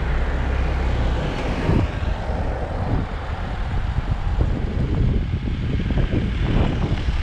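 Car driving along a road, heard from inside the cabin: steady engine and road noise with an uneven low rumble.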